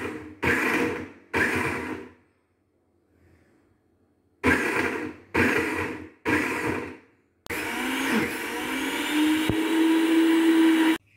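Tefal Perfect Mix countertop blender pulsed in short bursts, chopping chunks of vegetables and aromatics in broth: a few pulses, a pause of about two seconds, then three more. It then runs steadily for about three and a half seconds, its motor pitch rising near the end as the mix turns to a smooth puree, and stops abruptly.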